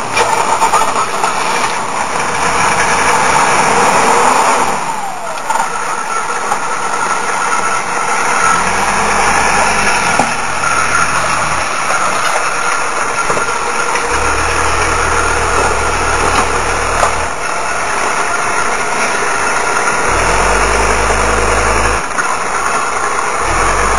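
Diesel engine of a Mercedes-Benz W123 station wagon idling steadily, running on converted grease fuel, amid a haze of rain noise. Heavy low wind rumble hits the microphone at times from about a third of the way in.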